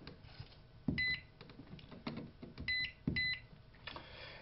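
SR868 solar hot water controller beeping as its keypad buttons are pressed: a short high beep about a second in, then two more in quick succession near three seconds. Each beep comes with a soft knock of the button press.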